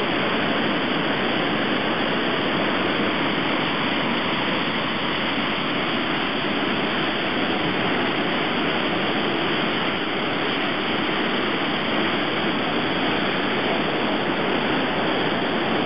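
Swollen Secchia river in flood rushing through the regulating structure of its flood-expansion basins: a loud, steady rush of turbulent water.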